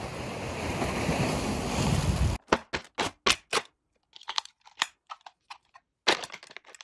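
A steady rushing noise for about two seconds, then it cuts off. After that comes a string of sharp clicks and crackles of the toy drone and its controller being handled in clear plastic packaging.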